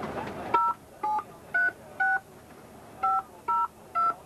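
Touch-tone telephone keypad beeps as a number is dialled: seven short two-tone beeps, four in quick succession, a brief pause, then three more. A low steady background of boat and sea noise lies beneath.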